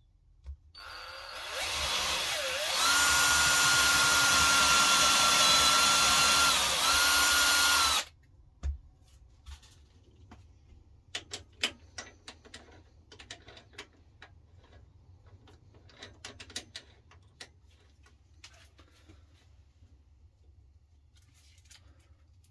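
Cordless drill boring into a bark-covered cherry log: it speeds up over the first few seconds, runs with a steady whine that dips briefly near the end, and stops abruptly about eight seconds in. After it come scattered light metal clicks and knocks as a lathe chuck is tightened with its bar and the log is handled.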